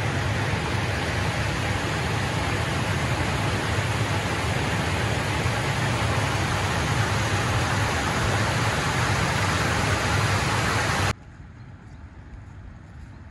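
Steady rush of water pouring over a low weir. It cuts off suddenly about eleven seconds in, leaving a much quieter, steady flowing-river sound.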